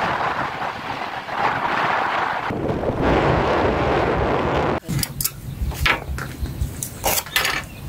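Wind rushing over the microphone on a moving motorbike, with road rumble. About five seconds in it changes abruptly to sharp clicks and taps of chopsticks against foam takeaway boxes and plates.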